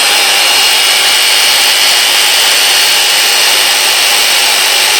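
A 1970s Black & Decker 7504 corded electric jigsaw running free at full speed with a steady, loud whine, not cutting anything. Its internals have been cleaned of their old grease and not yet re-oiled, and it runs strongly with no sparking or popping.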